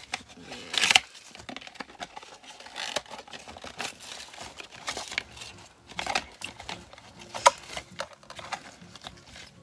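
Clear plastic packaging crinkling and tearing as popsicle moulds are unwrapped by hand: a run of sharp irregular rustles, with the loudest crackles about a second in and again about three-quarters through.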